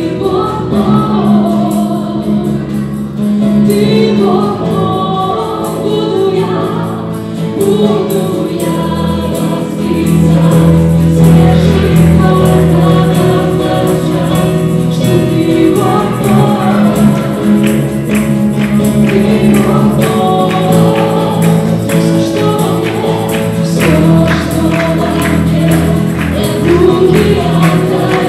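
Live worship band playing a song: several voices singing together on microphones over acoustic guitar, electric bass and keyboard, amplified through PA speakers. A steady rhythmic beat comes in about halfway through.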